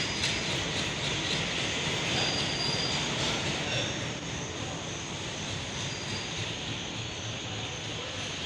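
Diesel-hauled goods train running steadily: a continuous rumble and hiss that eases slightly about four seconds in.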